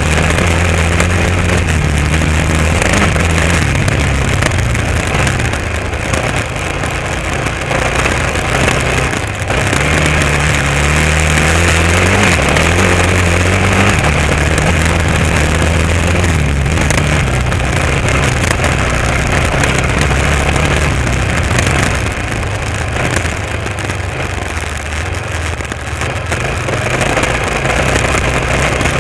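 Honda XR650R's single-cylinder four-stroke engine running under way, its pitch stepping up and down as the throttle changes, with a softer stretch a few seconds before the end. Road and wind noise run under it.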